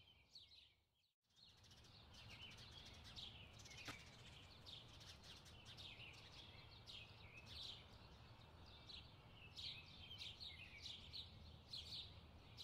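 Faint chirping of small birds, many quick calls repeating, over a low steady hum. The sound drops out briefly about a second in.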